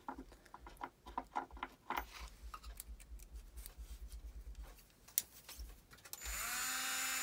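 Small clicks and ticks of the rotary manicure drill's handpiece being handled, a bit fitted into its chuck. About six seconds in, the drill's motor spins up, its pitch rising briefly, then runs with a steady whine.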